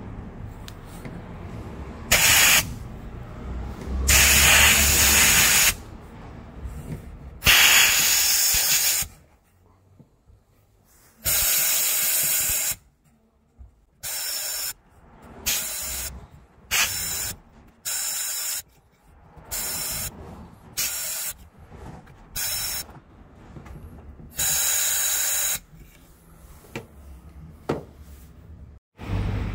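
Compressed-air spot sandblaster hissing in a series of on-off blasts as abrasive media is fired through its shroud onto rusted steel floor panels to strip the rust. The first few blasts last one to two seconds; after that they come as shorter, quicker bursts.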